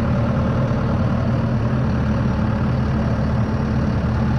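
Heavy engine idling steadily with a low, even drone.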